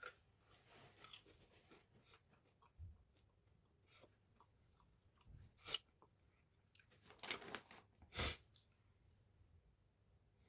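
A person chewing food close to the microphone: soft wet mouth clicks and smacks, with a few louder bursts of chewing in the second half.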